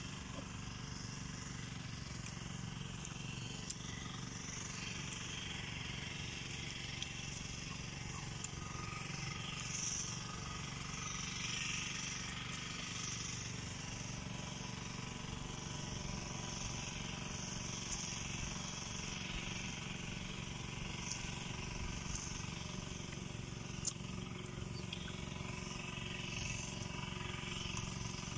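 Crunchy chewing of raw jicama slices, with a few faint clicks, over a steady low outdoor rumble.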